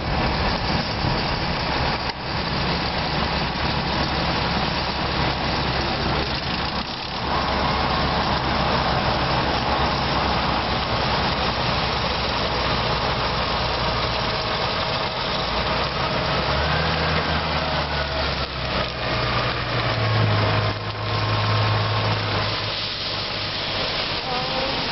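Farm tractor's diesel engine running steadily as it pulls a silage trailer across a harvested maize field, with a deeper, stronger engine note from about two-thirds of the way in as machinery draws close.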